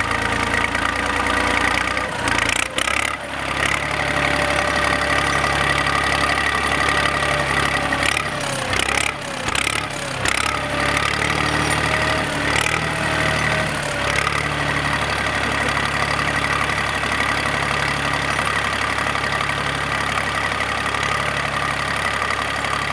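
Volvo BM 400 tractor engine running steadily at a low, idle-like speed, with a few sharp knocks and brief dips about three seconds in and again around nine seconds in.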